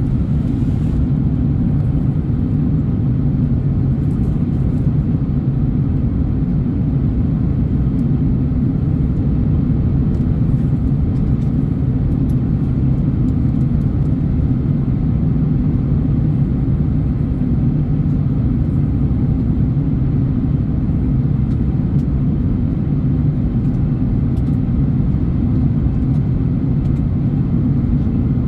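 Steady low rumble of an Airbus A330neo airliner in flight, engine and airflow noise as heard inside the cabin, even and unchanging.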